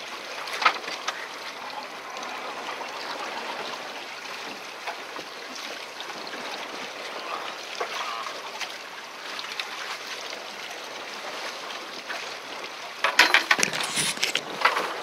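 Sea water splashing and sloshing around a small fishing boat, a steady rushing wash. About 13 seconds in, a short burst of rapid crackling clicks, the loudest sound here.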